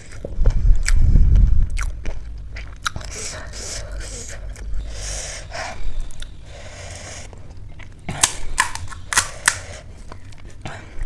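Close-miked eating of pani puri: crisp puri shells cracking and crunching, with chewing between the cracks. A heavy low thud comes about a second in.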